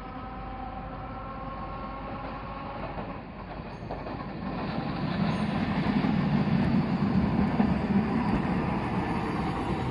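Old Hiroshima Electric Railway streetcar, car 1906 (ex-Kyoto city tram), running along street track and passing close by. Its low wheel-on-rail rumble grows loud about five seconds in and is loudest around six to eight seconds in.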